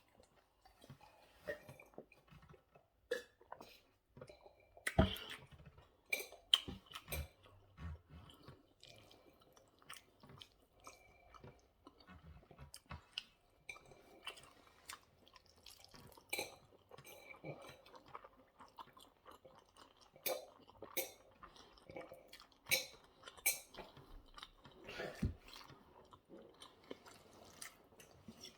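A person chewing and eating spaghetti bolognese close to the microphone, with wet mouth smacks and clicks and the occasional light clink of cutlery on a plate.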